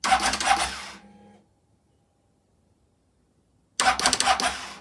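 Starter solenoid on a 2021 CFMoto CForce 600 ATV chattering in a quick burst of clicks, twice, as the start button is pressed, with no cranking of the engine. The owner takes the sound for a failing solenoid.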